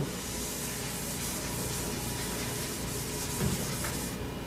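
Chalkboard eraser rubbing across a blackboard in steady strokes, a continuous scrubbing hiss that stops about four seconds in.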